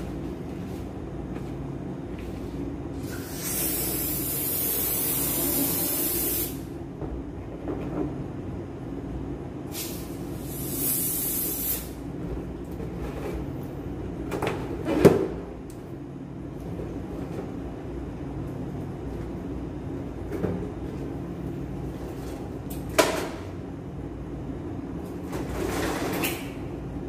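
Helium hissing out of a cylinder's balloon-inflator valve as latex balloons are filled: three bursts, the first about three seconds long, the second about two, the last brief. A steady low hum runs underneath, and there are two sharp knocks in the middle stretch.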